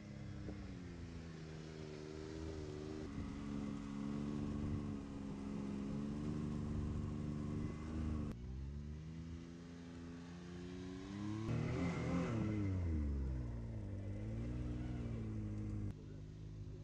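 Can-Am Maverick side-by-side's engine running at low revs as the buggy crawls over dirt mounds. It revs up and back down once about two-thirds of the way through, then briefly again shortly after.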